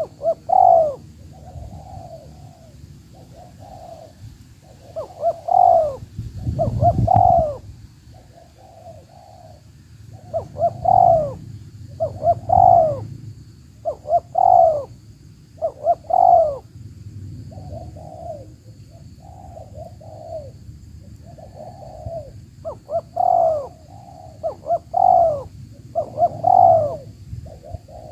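Spotted doves (tekukur) cooing in repeated short phrases every second or two, with loud coos near at hand alternating with fainter ones. A low rumble swells briefly about seven seconds in.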